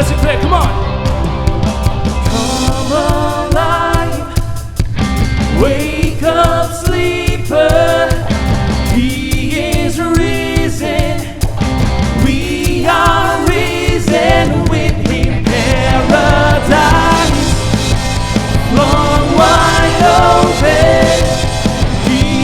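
Contemporary Christian worship song: a singer's melody over a band with a drum kit and a steady bass.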